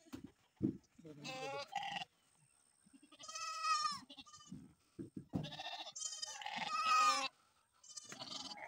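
Livestock bleating, about four long, wavering calls a second or two apart, the longest near the end. Two dull knocks come between the calls, one about half a second in and one about five seconds in.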